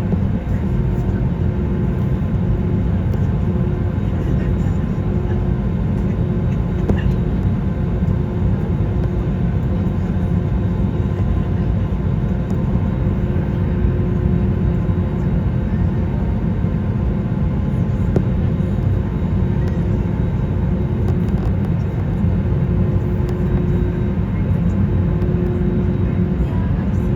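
Steady low rumble of engine and airflow heard inside the cabin of an Airbus A321neo airliner, with a faint hum that comes and goes.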